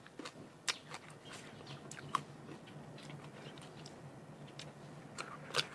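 Close-up eating of sour green mango: chewing and biting, with sharp crunches or mouth smacks about a second, two seconds and five and a half seconds in.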